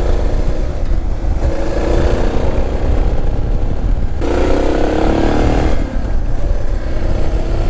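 Suzuki DR650's single-cylinder engine pulling under way, its note climbing as it accelerates, loudest about four seconds in, with a brief dip twice where the throttle eases. Heavy wind rumble on the helmet-mounted microphone runs under it throughout.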